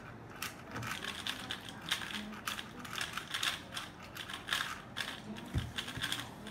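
Rapid, irregular clicking and clacking of a 3x3 speed cube's plastic layers being turned fast during a solve.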